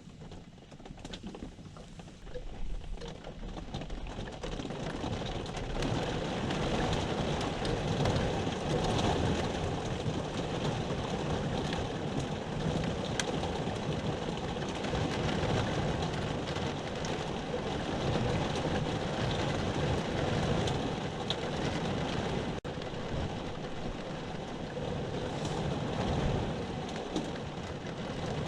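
Rain coming down in a storm, growing louder over the first several seconds and then falling as a steady downpour.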